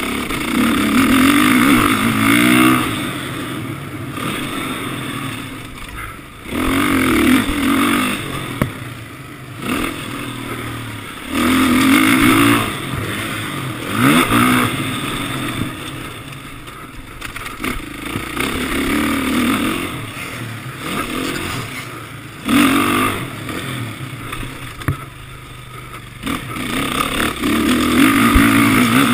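Motocross bikes revving hard on the track. The engines rise and fall in pitch with the throttle and swell loud again every few seconds as bikes come past.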